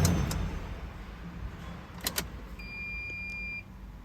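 Toyota Sequoia engine switched off, its low running hum dying away at once. About two seconds later there are two sharp clicks of the ignition key, then a steady high tone that lasts about a second and cuts off suddenly.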